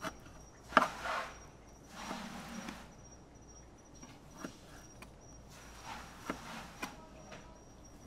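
Kitchen knife cutting swordfish into cubes on a plastic cutting board: a few sharp knocks of the blade on the board, the loudest about a second in, with softer slicing and handling noise between.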